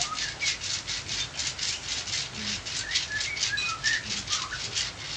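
Massage strokes rubbing rhythmically over skin, about four swishing strokes a second.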